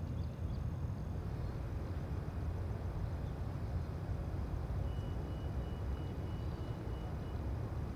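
Steady low outdoor rumble, such as distant motors make, with a faint thin high tone that comes in about five seconds in and lasts about two seconds.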